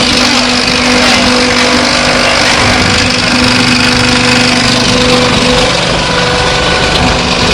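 Fine stone concrete pump running, a loud, steady machine noise with a constant hum.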